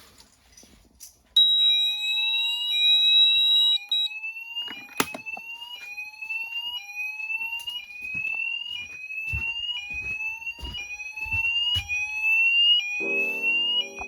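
Fire alarm sounders going off on a manual call point test. About a second in, a steady high tone starts and a rising sweep tone begins repeating roughly once a second. The steady tone drops out after a few seconds while the sweeps carry on, and a lower tone joins near the end.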